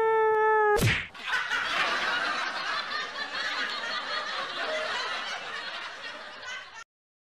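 A held, slightly falling wailing cry, broken by a sharp crack just under a second in. Then crowd laughter, a laugh track, runs on dense and even until it cuts off suddenly near the end.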